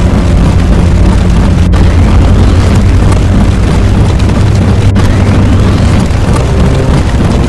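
Loud, continuous explosion-like rumble from edited sound effects, with a brief cut about every three seconds and a faint rising whistle in each stretch.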